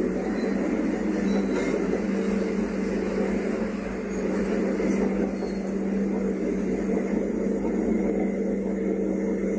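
Heavy diesel engine of a wheeled tractor running steadily under load as it tows a lowboy trailer with a drill rig, a constant low drone with rumbling noise.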